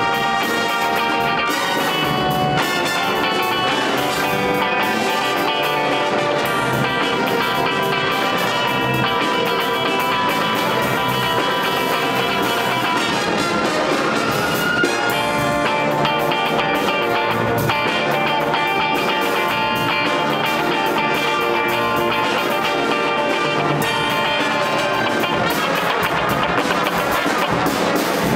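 A live jazz band playing a funk tune, with electric guitar standing out over electric bass, piano, drum kit, saxophones and brass.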